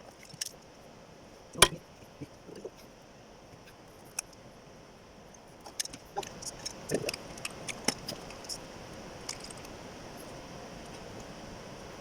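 Hand tools and metal engine parts clinking and tapping during cylinder head work, with one sharp knock about a second and a half in and a run of irregular light metallic clicks from about six to eight seconds in.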